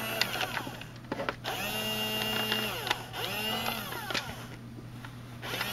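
Small electric motor of an RC Sherman tank's gun-elevation drive whirring in three short runs, each spinning up and winding down; the longest lasts about a second, near the middle. Faint clicks between the runs.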